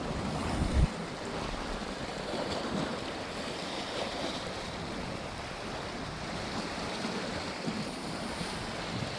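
Steady outdoor wind and wave noise, with wind buffeting the microphone in a brief low thump just under a second in.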